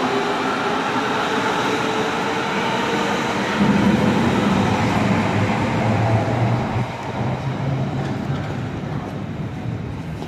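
Berlin S-Bahn electric train running: a steady whine of several tones from its traction motors over wheel-on-rail rolling noise. About three and a half seconds in, a louder, deeper hum takes over, then eases off toward the end.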